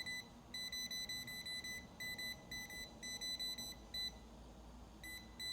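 Touchless (non-contact) voltage detector beeping in quick short high-pitched pulses, several a second, with a brief pause a little over four seconds in. The beeping is its signal that it senses live AC voltage.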